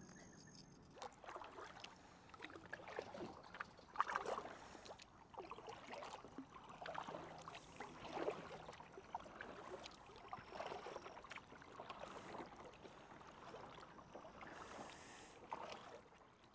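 Faint creek water lapping and gurgling in small irregular splashes, with one louder splash about four seconds in.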